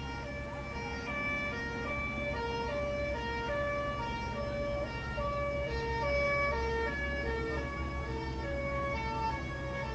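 Emergency-vehicle sirens sounding a two-tone hi-lo pattern, more than one at once and out of step, over a steady low rumble.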